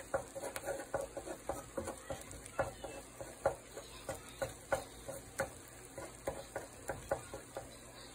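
Wooden slotted spatula stirring and scraping eggs scrambling in a ceramic-coated frying pan, with irregular light taps against the pan, two or three a second, over a faint sizzle.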